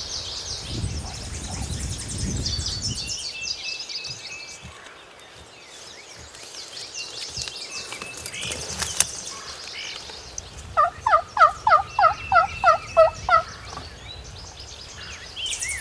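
A series of about eleven turkey yelps, evenly spaced at roughly four a second, each note breaking downward in pitch; they come near the end, over songbirds chirping in the background.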